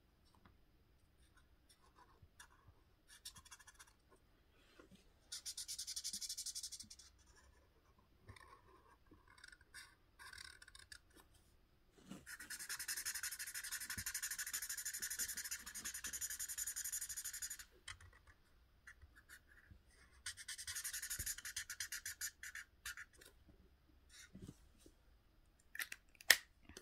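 Marker tip scratching across paper in quick back-and-forth colouring strokes, in three stretches, the longest about five seconds, with soft taps and pen movements between.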